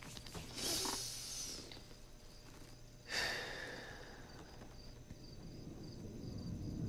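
A man's heavy breathing: two noisy breaths, one about a second in and another about three seconds in, over a faint steady hum. A low drone swells near the end.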